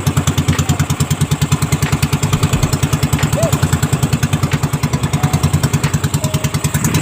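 Small engine of a motorized fishing boat running steadily at low speed, with an even putt-putt of about ten beats a second.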